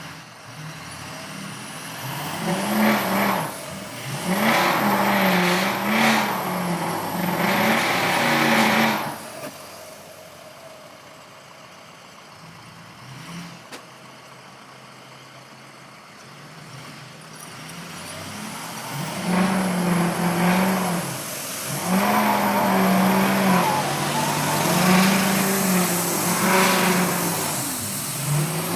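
A motor vehicle's engine revving up and down in two loud spells, with a quieter stretch between them.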